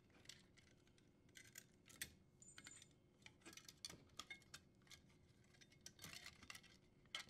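Faint, irregular small clicks and rattles of the power cord and its wires being worked out through a dishwasher's sheet-metal junction box.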